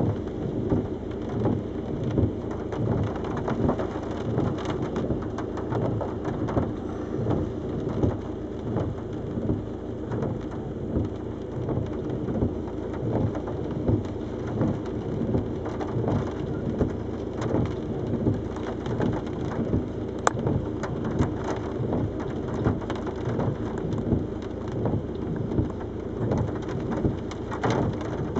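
Gale-force wind buffeting a car in uneven gusts, heard from inside the cabin, with wind-driven water spattering steadily on the roof and windscreen.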